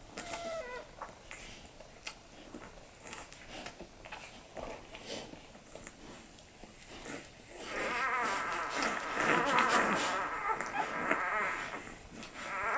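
Newborn Australian Shepherd puppies squeaking: a few faint, short squeaks at first, then from about eight seconds in a loud, wavering chorus of overlapping squeaks.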